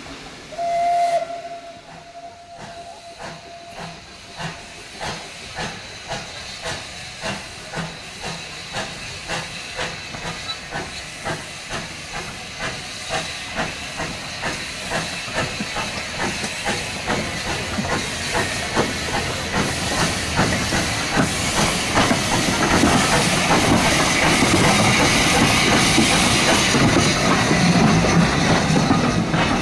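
Steam locomotive sounding a short whistle, then starting away. Its exhaust beats come slowly at first, quicken steadily and grow louder, until they run together near the end.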